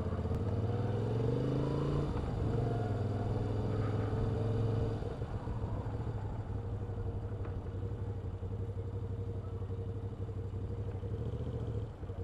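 Motorcycle engine of a 2016 Moto Guzzi V7 II Stone, an air-cooled transverse V-twin, running in slow city traffic. Its pitch climbs, dips about two seconds in, climbs again, then drops back to a lower steady running sound about five seconds in.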